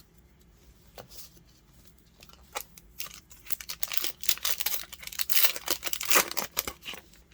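Yu-Gi-Oh booster pack's foil wrapper being torn open and crinkled: a few light taps at first, then a dense run of crackling tearing from about two and a half seconds in, easing off near the end.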